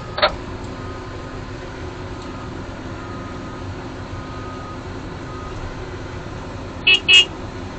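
Case 245 excavator's diesel engine idling with a steady drone, and two short horn toots close together near the end.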